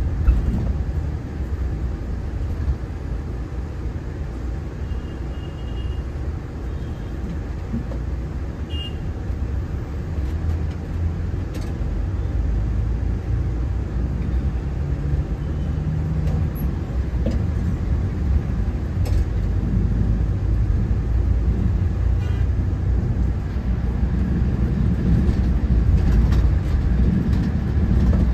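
Steady low rumble of a bus on the move, engine and road noise together, growing a little louder near the end.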